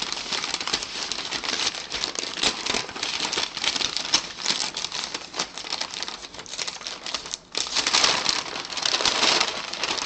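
Packaging crinkling and rustling as a boxed autographed football is unwrapped, a dense run of crackles and small clicks with a brief pause about seven and a half seconds in.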